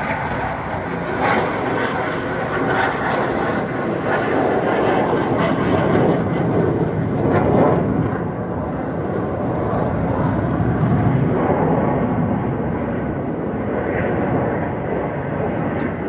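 Military fighter jet flying overhead: steady jet engine noise that swells a little around the middle.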